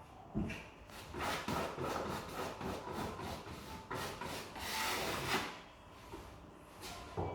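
Uneven, repeated rubbing and scraping strokes of a hand tool over timber floorboards.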